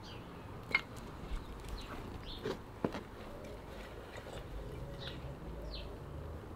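A few sharp wooden knocks and clacks as split kindling sticks are dropped into a small steel firebox stove. Short falling bird chirps sound in the background.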